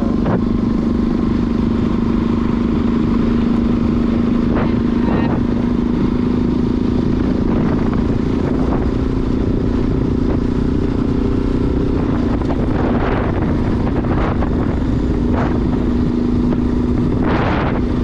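Motorcycle engine running at a steady, even pitch while riding, over a continuous low rumble.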